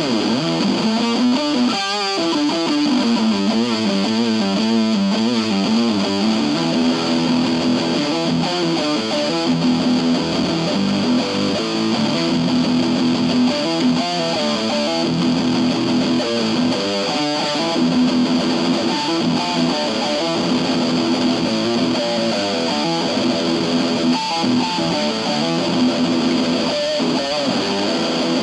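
IYV thinline Telecaster-style electric guitar played through a Keeley compressor and a Pigtronix Space Rip pedal into an Orange Crush 20 combo amp. The notes waver and warble for the first few seconds, then settle into steadier held notes.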